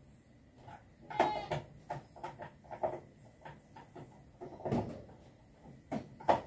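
Irregular clacks, knocks and rustles of hands handling a solar charge controller and its wiring, with a short squeak about a second in.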